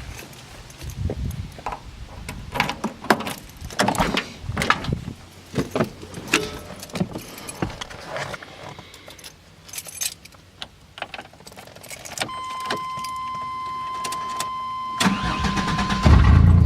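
Keys jangling and scattered clicks and knocks, then a steady high warning tone about twelve seconds in as the ignition is switched on. Near the end the old Ford van's engine cranks briefly, catches and runs loud.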